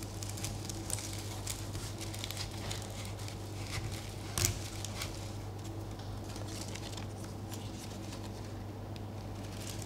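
Faint rustling and small clicks of steel grass stems being handled and pushed into a floral arrangement, with one sharper click about halfway through, over a steady low hum.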